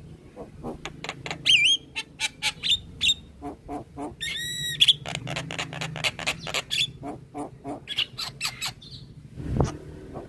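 Javan myna singing in full voice: a fast run of harsh clicks and chattering notes with short wavering whistles, and a longer ringing call about four seconds in. A low thump comes near the end.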